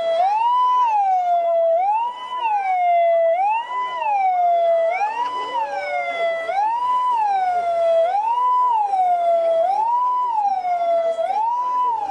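A siren wailing in a steady, repeating cycle about every second and a half. Each cycle rises quickly to a high note, holds it briefly, then slides back down.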